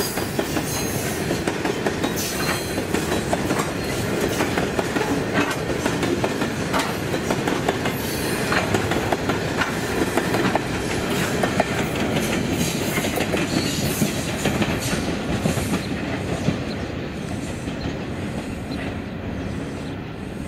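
Pacific National grain hopper wagons of a freight train rolling past close by: a steady steel-wheel rumble with rhythmic clicking as wheels cross the rail joints. The sound eases off over the last few seconds.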